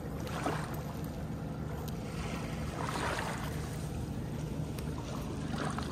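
Steady wind rumbling on the microphone, with faint scraping and ticking from a fork lifting cooked fish off a flat stone.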